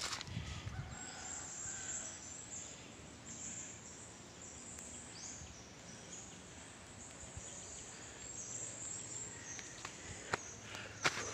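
Forest ambience: a continuous high-pitched chorus of wildlife calls from the trees, with a few footsteps on leaf litter near the start and near the end.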